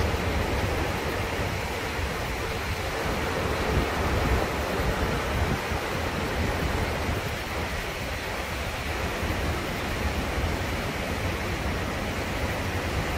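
Steady rush of a mountain river's whitewater tumbling over boulders below a stone railway bridge, an even noise with no breaks.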